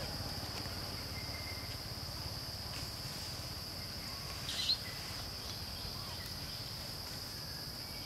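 Steady high-pitched drone of insects in the forest, with one brief high chirp about halfway through.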